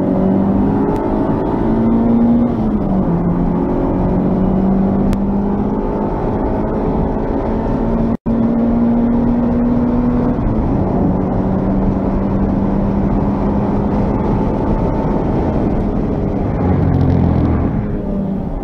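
Honda Civic's D16Z6 1.6-litre SOHC VTEC four-cylinder engine running hard on track, heard from inside the cabin over road and tyre noise. The engine note climbs, dips about three seconds in, climbs steadily again until about ten seconds in, then eases and falls lower near the end as the car slows. The sound cuts out for an instant about eight seconds in.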